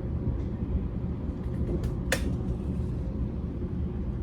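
Railway train and station ambience: a steady low rumble, with one sharp click about two seconds in.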